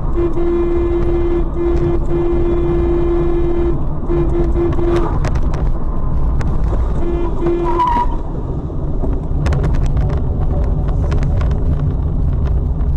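Loud road noise of a car driving at speed, with a car horn sounded in a long blast and several short ones in the first five seconds and again briefly about seven seconds in. From about nine seconds in comes a run of sharp knocks and clatter as a vehicle ahead crashes off the road in a cloud of dust.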